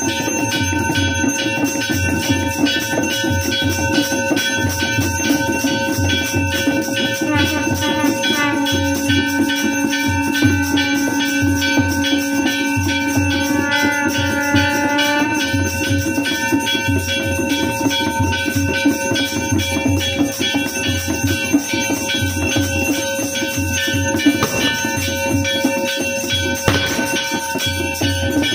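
Music with a steady low drum beat and jingling percussion over sustained tones; a held note sounds from about eight to fifteen seconds in.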